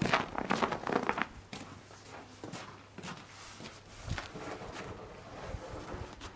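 Footsteps crunching on snow, a quick run of strokes in the first second or so, then a few light knocks and scrapes as a long wooden board is handled.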